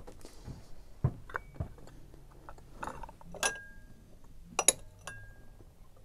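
Bunzlau Castle stoneware bowls clinking as they are handled on the shelf: a series of sharp ceramic clinks, a few of them leaving a short ringing tone.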